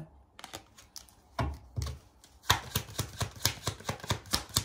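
Tarot cards being handled and shuffled: a couple of soft knocks, then from about halfway through a quick, irregular run of light clicking flicks.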